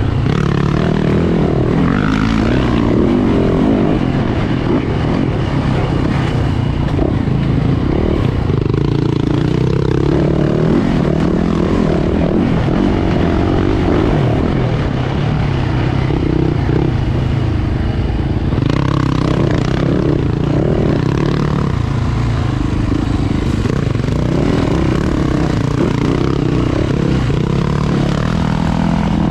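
Yamaha YZ450F four-stroke single-cylinder dirt bike engine running hard, its revs rising and falling continuously with throttle and gear changes, heard close up from a helmet-mounted camera.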